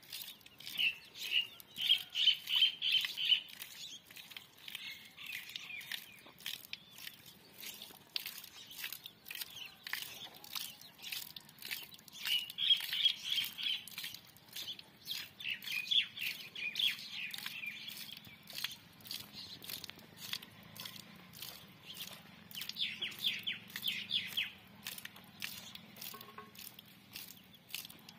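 Small birds chirping in several bursts of rapid high notes, over frequent faint clicks and taps.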